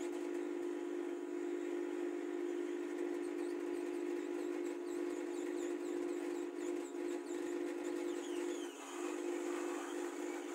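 Hot air rework station blowing steadily, a constant hum with an airy hiss over it, as it heats the phone board to desolder the MT6358W power IC.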